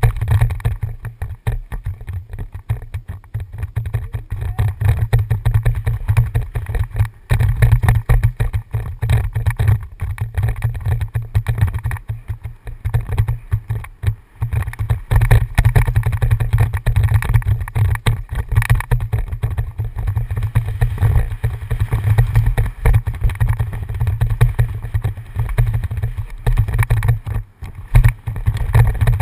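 Wind rumbling on a helmet camera's microphone, mixed with the clatter and rattle of a downhill mountain bike riding fast over a rough dirt trail.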